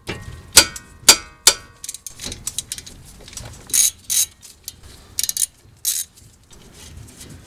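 Ratchet wrench and socket on a brake caliper bolt: three sharp metal clinks with a short ring in the first second and a half, then lighter ratchet clicks and taps as the 14 mm caliper bolt is worked loose.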